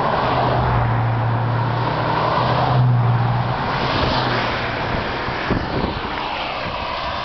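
Cars driving past close by one after another, engine hum and tyre noise. The loudest pass comes about three seconds in, and the hum fades soon after.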